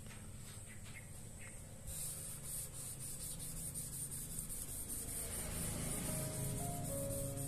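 Wet, gritty rubbing of a small grey block worked back and forth on a 6000-grit water stone in quick, regular strokes, starting about two seconds in. Faint piano music comes in near the end.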